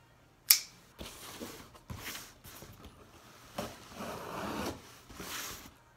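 A cardboard shipping box being opened by hand: a sharp click about half a second in, then three stretches of scraping and tearing at the box's top.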